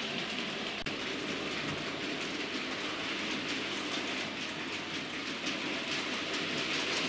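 Hornby OO gauge model steam locomotive and a long train of loaded freight wagons running along model track: a steady hissing rattle of small metal wheels on the rails, with faint fine clicks.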